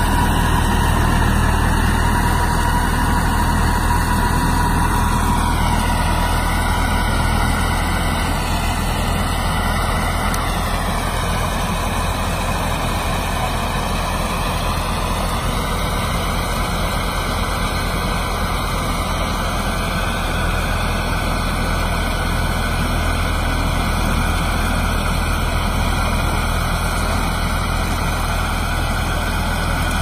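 Osaka OS-4GL-1 sugarcane harvester running steadily in the field, a constant low engine drone, with a faint high whine over it for the first few seconds.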